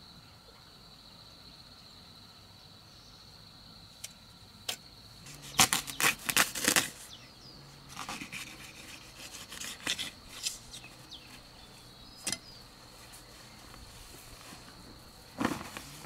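A steady high-pitched insect trill in the background, fading about three-quarters of the way through, cut by irregular sharp knocks and clicks: a tight cluster about five to seven seconds in, scattered ones over the next few seconds, a single one near twelve seconds and more at the very end.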